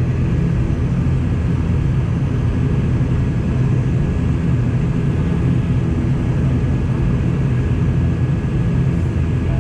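Airliner engines running with a steady, loud low drone and a thin, steady whine above it, the sound of the airliner taking off.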